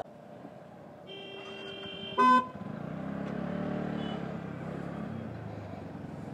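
Vehicle horns in traffic: a thin horn held for about a second, then a short, loud toot. A small engine then pulls away, its pitch rising and then easing off.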